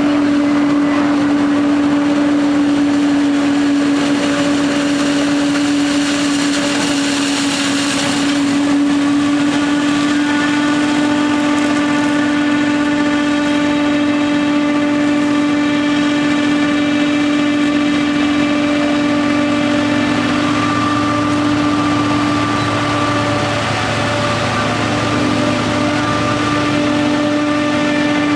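Self-propelled forage harvester running as it chops maize for silage: a loud, steady machine drone with a strong held tone, joined about ten seconds in by a set of higher steady tones.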